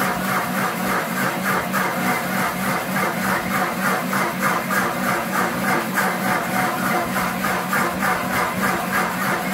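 Pampered Chef Deluxe Cooking Blender running a one-minute smoothie blend, its motor and blades churning with a steady sound that pulses evenly a few times a second.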